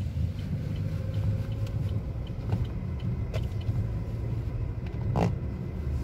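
Car heard from inside the cabin while driving on a snow-covered street: a low, steady engine and road rumble, with a couple of short clicks about midway and near the end.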